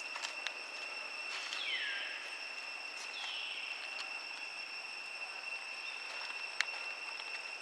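A steady high-pitched drone of insects, like crickets or cicadas. Two short calls fall in pitch about a second and a half and three seconds in, with a few faint clicks and one sharp click near the end.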